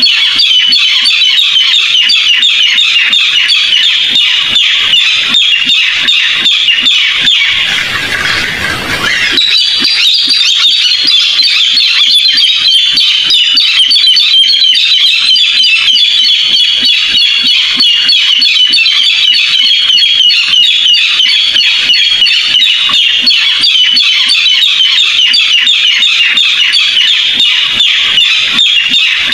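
Recorded barred rail call used as a trapping lure: a loud, unbroken run of rapid, harsh repeated notes, blurring briefly about eight seconds in.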